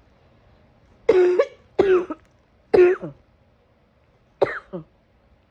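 A person in a harsh coughing fit: four coughs about a second apart, each carrying a strong pitched, voice-like tone, the last a quick double cough.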